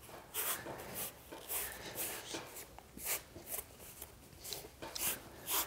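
Hands rubbing and pressing a piece of leather down onto a saddle's ground seat: a quick, uneven series of soft brushing strokes, skin sliding over leather.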